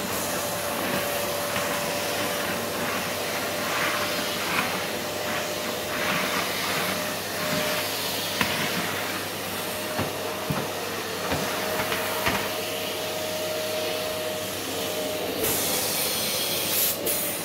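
Workshop vacuum cleaner sucking sawdust off a wooden floor through a long hose and floor nozzle: a steady rush of air with a steady motor whine, and now and then a short click. Near the end the hiss briefly turns brighter.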